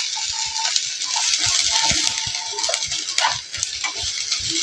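Ginger and garlic sizzling in hot oil in a pan, with a spatula clinking and scraping against the metal as it is stirred.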